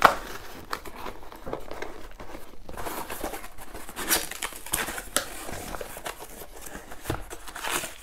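Cardboard box being handled and its flaps opened, with the crinkle of paper packing being pulled out: irregular rustles and light knocks, with a sharper knock right at the start.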